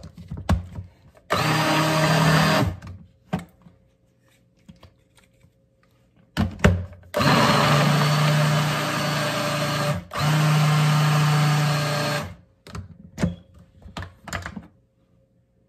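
Small personal blender pulsing a thick cooked apple and prune mixture. Its motor runs three times: once briefly, then two longer runs back to back with a short break between. Knocks of the plastic jar being set on and lifted off the base come between and after the runs.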